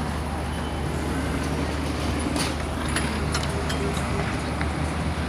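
Minibuses and cars passing close by at low speed on a rough dirt track, their engines giving a steady low rumble, with a few short clicks about halfway through.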